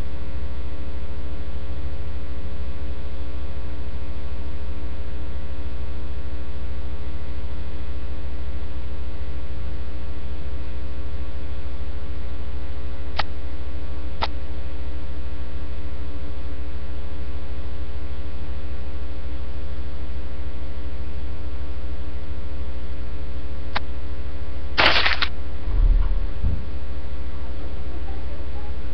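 Loud steady electrical mains hum with its stack of harmonics. About halfway through there are two sharp clicks a second apart and another click later on. Near the end comes a brief burst of crackle followed by a couple of low thumps.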